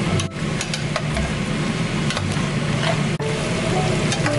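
Chicken pieces in a thick masala gravy sizzling and bubbling in a pot, with fine crackling over a steady low hum.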